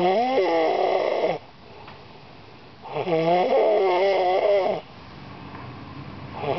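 A man snoring loudly in deep sleep: two long snores of about one and a half to two seconds each, with a third beginning near the end. Each snore has a wavering pitch, and there are quieter stretches between them.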